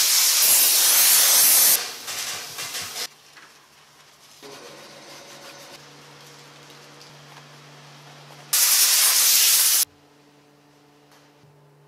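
Steam cleaner wand hissing as it jets steam onto car upholstery, loud for about two seconds before cutting off. After a quieter stretch with a steady low hum, a second loud burst of hiss about eight and a half seconds in lasts just over a second.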